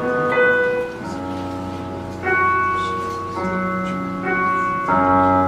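Background music of sustained chords, changing to a new chord about every second, with no speech.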